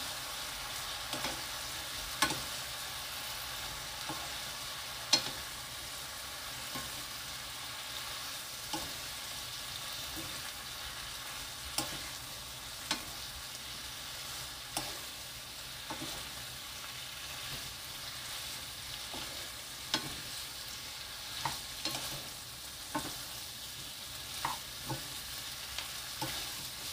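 Shredded dried filefish being stir-fried in a sticky soy-and-syrup sauce in a nonstick pan over lowered heat: a steady sizzle, with irregular clicks and taps of wooden spatulas against the pan as the strips are tossed.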